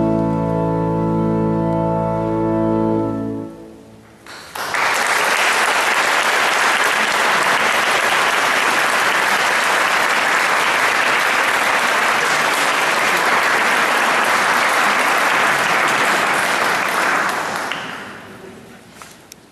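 A closing chord on the organ is held and released about three and a half seconds in. About a second later audience applause starts, runs steadily and dies away near the end.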